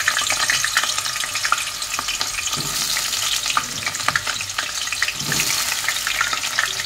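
Raw peeled potato chunks deep-frying in hot oil in an aluminium pot: a steady, dense sizzle full of fine crackles, as more pieces are added to the oil.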